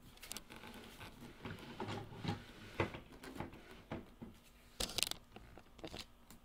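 Handling noise: irregular rustling with scattered knocks and clicks as the recording device is gripped and repositioned, the sharpest knocks about three and five seconds in.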